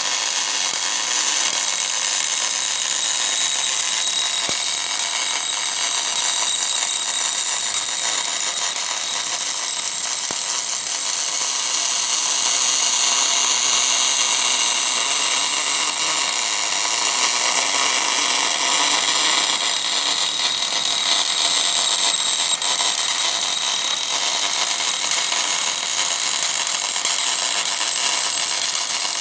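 Electric welding arc of an orbital welding machine running steadily along a seam: an even, loud hiss with a thin, steady high whine.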